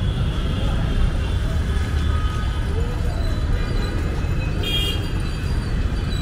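Street traffic noise: a steady low rumble of passing vehicles, with a brief high-pitched tone about three-quarters of the way through.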